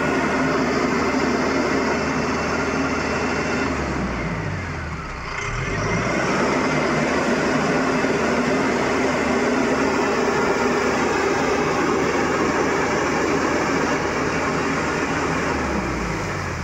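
Mahindra EarthMaster SX backhoe loader's diesel engine running as the machine drives through shallow river water, its rear wheels churning up splashing spray. The engine sound dips and then rises again about five seconds in.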